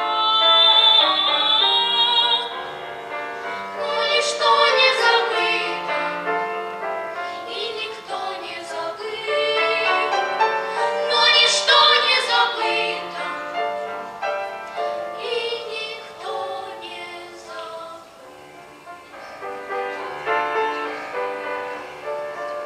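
Children's vocal ensemble singing a song in unison with accompaniment, the voices swelling loud on several phrases and dropping back softer near the end.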